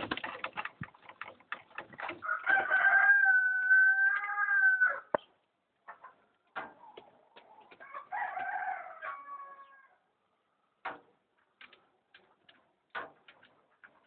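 A rooster crows twice, a long steady call about two seconds in and a shorter one near eight seconds, over scattered sharp taps and a flutter of pigeon wings at the start.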